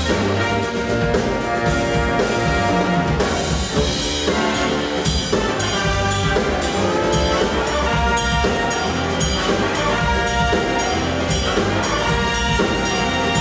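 Jazz ensemble with a brass section of trumpets and trombones playing together over a steady bass line and drums.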